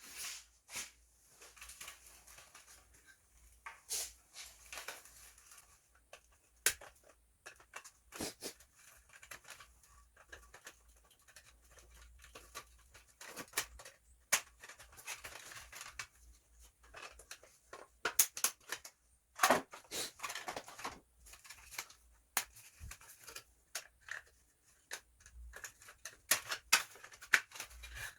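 Irregular clicks, taps and short scrapes of plastic headlight parts being handled, as the inner trim piece is unclipped from one BMW X1 headlight housing to be fitted into the other.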